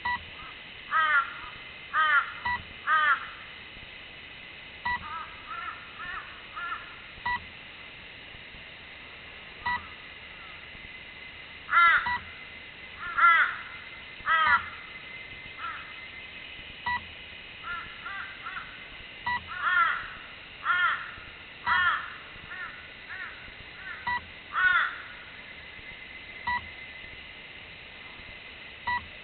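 A bird cawing repeatedly in runs of two or three loud calls, with quieter short notes in between. Faint short beeps are heard now and then over a thin, steady high whine.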